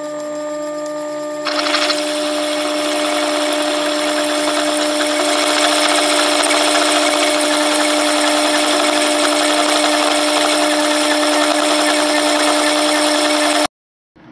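Sherline milling machine spindle running with a steady whine. About a second and a half in, an 82-degree countersink starts cutting into 4140 pre-hardened steel, adding a loud cutting noise that holds steady until the sound cuts off suddenly near the end.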